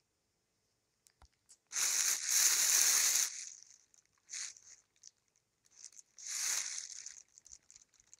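Two bursts of close rustling, a longer one of about a second and a half and a shorter one of about a second, with soft scattered clicks in between.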